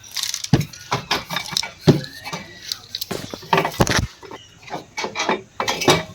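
Irregular metal clanks and knocks as the rusted-through exhaust silencer of a Hero Splendor Plus motorcycle is pulled off the bike.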